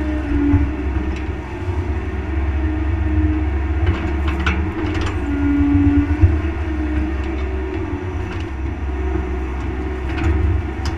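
Bobcat mini excavator's diesel engine running steadily while the boom and bucket dig into wet mud. A tone rises and falls away several times as the hydraulics work, and there are a few knocks and scrapes from the bucket.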